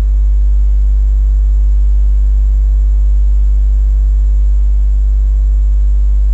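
Loud, steady electrical mains hum in the recording: a low constant tone with a stack of even overtones, unchanging throughout.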